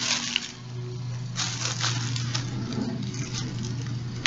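Rustling and crinkling of packaging as a wrapped white sage bundle is handled, loudest about a second and a half in, over a steady low hum.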